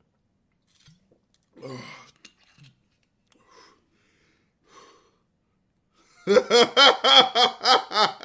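A man's faint gasps and breaths, then from about six seconds in, loud, rapid laughter, about five bursts a second.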